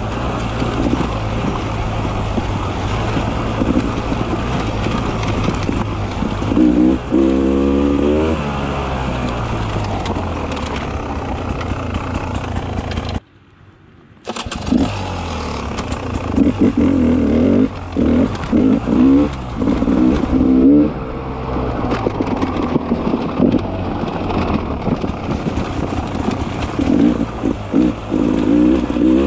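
Beta 300 RR two-stroke single-cylinder enduro motorcycle engine running under a trail rider, revs rising and falling with the throttle, with one clear rev up and back down about seven seconds in. The sound drops to near silence for about a second around the middle, then the engine comes back.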